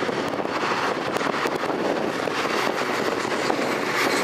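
Metra commuter train rolling past: a steady noise of wheels on rails, with scattered clicks in the first couple of seconds.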